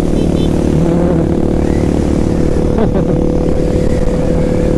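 Honda CB650R's inline-four engine running at a steady cruise, its pitch holding level under a constant rush of wind.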